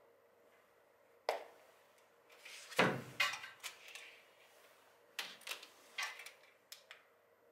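Quiet handling noises on a small portable voice amplifier: a single click, then a knock and short rattle about three seconds in as the 3.5 mm aux cable is pulled from its jack, then a few light clicks and taps from fingers on the unit's buttons.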